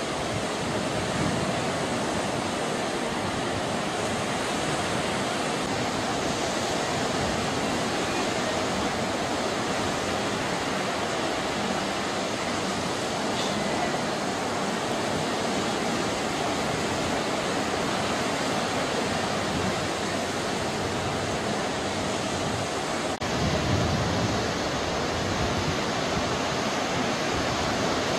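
Ocean surf breaking and washing up the beach, a steady rushing noise. A brief click comes a little after twenty seconds in, followed by a couple of seconds of deeper rumble.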